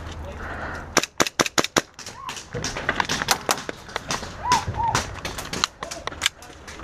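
Airsoft guns firing: a quick string of about eight sharp shots about a second in, then scattered single shots and short bursts.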